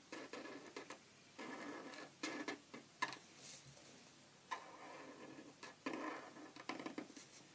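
Felt-tip pen drawing on paper in a series of short scratchy strokes, with a few light taps of the pen among them.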